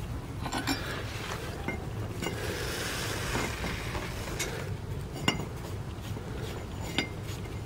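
Rusty steel U-bolts clinking and scraping against each other and a tube as they are handled and fitted over it: a handful of sharp metallic clinks, the loudest about five seconds in.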